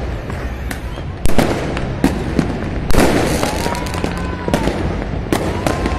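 Fireworks and firecrackers going off across the city: a rapid scatter of pops and bangs, with two louder blasts about a second and three seconds in, over a continuous din.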